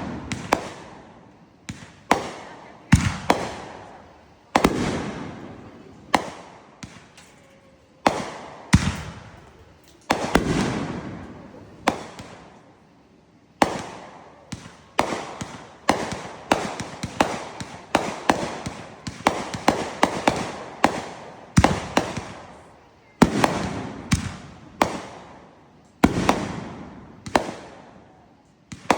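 Fireworks going off in a steady barrage of sharp bangs, each dying away in a crackling tail. The bangs come about once or twice a second, and faster in the middle.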